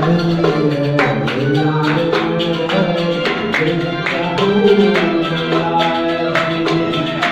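Arabic music on qanun, its plucked strings ringing over held notes, with hand percussion beating a steady rhythm.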